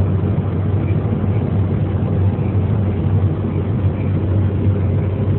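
Combine harvester running steadily under load while cutting wheat: a constant engine and threshing drone with a strong low hum.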